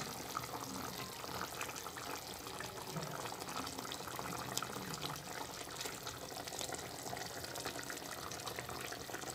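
Pot of chicken and vegetable broth simmering on a gas burner, a steady bubbling hiss, with a few light knocks as pieces of zucchini are laid into the pot.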